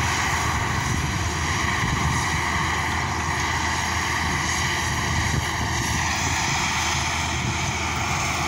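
A large engine running at a steady speed: a constant drone with several steady tones over a noisy hum.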